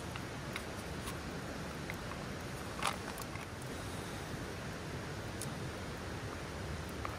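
Steady hiss with scattered small crackles from a wood campfire, and one louder sharp click about three seconds in.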